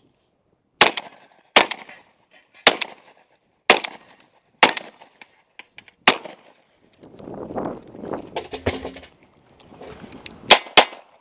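A semi-automatic shotgun fires six shots, roughly one a second. A few seconds of handling noise follow, then a quick string of 9mm pistol shots begins near the end.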